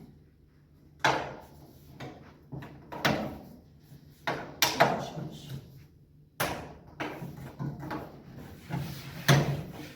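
A series of irregular knocks and clatters, about a dozen, some in quick pairs, the loudest near the end, over a faint low hum.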